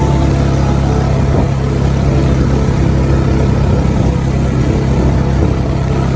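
A steady, loud low engine drone, like a motor vehicle running.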